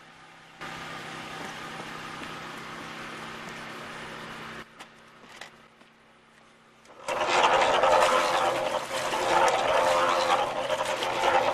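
Small portable cement mixer running, with wet mortar churning and sloshing in its turning drum; a steady hum in the first few seconds, then a loud rushing slosh from about seven seconds in.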